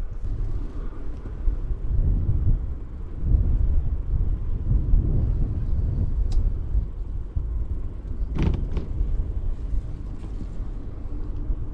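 Low, fluttering rumble of wind on the microphone and tyres on a moving bicycle, with a sharp click about six seconds in and a short knock about two seconds later.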